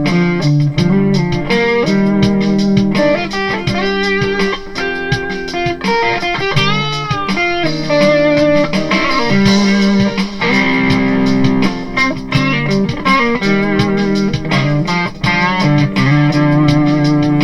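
Kiesel Delos electric guitar played through a PRS HDRX 20 amplifier: a jam of picked lead lines with string bends over held lower notes.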